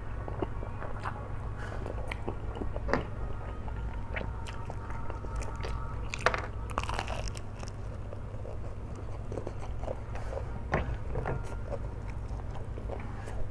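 A person eating flat rice noodles (kwetiau) in spicy sauce: bites and chewing with many small wet clicks, and a louder burst about six seconds in. A steady low hum runs underneath.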